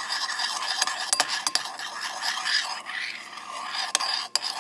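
Metal spoon stirring a wet glue-and-borax slime mixture in a ceramic bowl, scraping around the sides with a few sharp clinks against the bowl.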